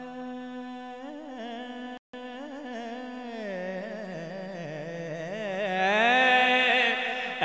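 A man singing naat into a microphone, drawing out a long wordless melismatic line: a held note, then wavering, bending turns that swell louder near the end. The sound cuts out for an instant about two seconds in.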